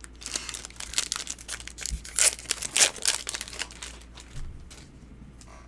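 Foil booster-pack wrapper crinkling and tearing: a dense run of crackles for about the first three seconds, then a few softer rustles.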